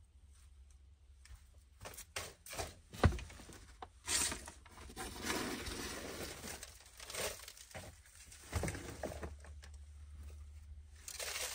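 Dry, brittle debris and old material being pulled out of a car's interior: rustling, crinkling and tearing, broken by scattered knocks. The loudest is a single sharp knock about three seconds in.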